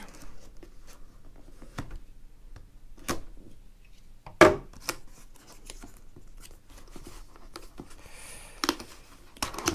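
Cardboard packaging being opened by hand: a folding knife slits the seal with small clicks and scrapes, a sharp knock about four and a half seconds in, then cardboard rubbing as the inner box slides out of its sleeve.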